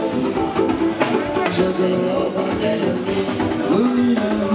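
Live juju band music: electric guitars and drums with singing over them, at a steady, loud level.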